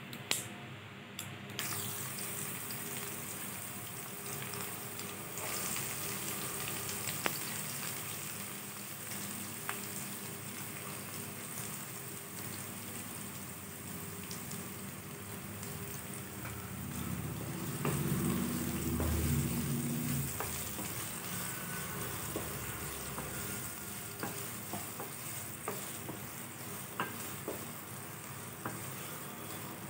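Chopped onions sizzling in hot oil in a nonstick kadai, with mustard seeds crackling and a wooden spatula stirring. A low hum swells and fades a little past halfway.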